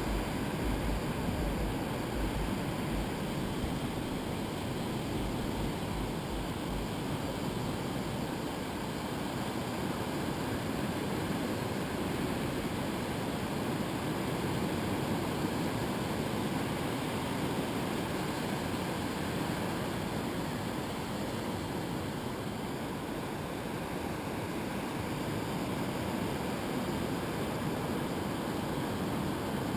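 Steady wash of surf breaking on a sandy beach, with low wind rumble on the microphone in the first several seconds.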